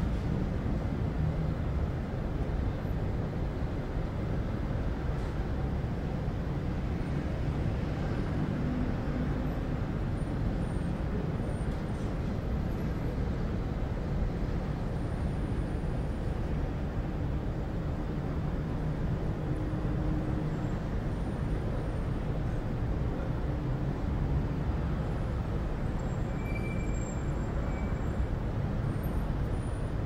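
City street ambience: a steady rumble of road traffic, with the hum of passing vehicle engines rising and falling. A few faint short high tones come near the end.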